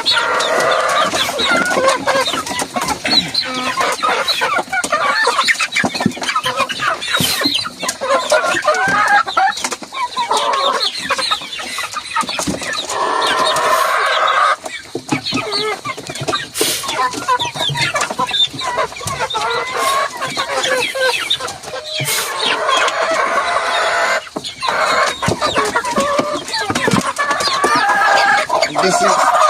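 A flock of chickens clucking and calling over one another, with a rooster crowing among them, as the hungry birds are let out to their feed.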